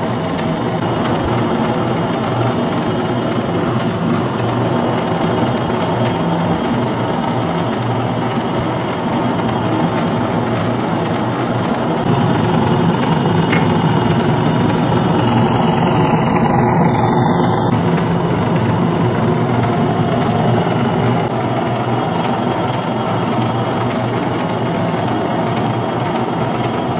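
A small DC electric motor belt-driving a car alternator, both running at steady speed with a constant mechanical hum. It gets slightly louder for several seconds about halfway through.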